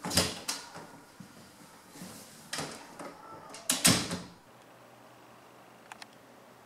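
Interior office door being handled: the latch clicks and the door opens, then it shuts with a loud knock about four seconds in.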